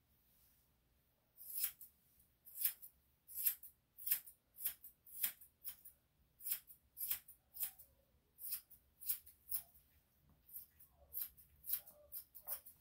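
Grooming scissors snipping through a Yorkshire Terrier's face hair: a steady run of short, sharp snips, about two a second, starting about a second and a half in.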